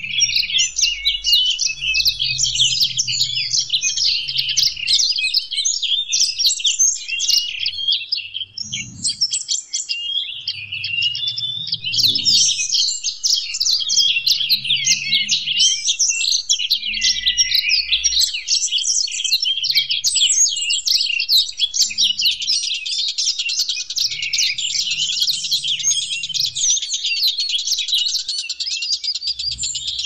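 Songbirds singing in a fast, unbroken stream of high-pitched chirps, whistles and twittering. From about three-quarters of the way through, the song becomes a more even, rapid buzzy trill.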